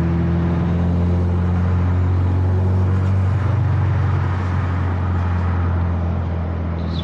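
Turbocharged Subaru flat-four breathing through a catless downpipe, running at a steady cruise with a steady low exhaust drone. The pitch shifts slightly about three to four seconds in.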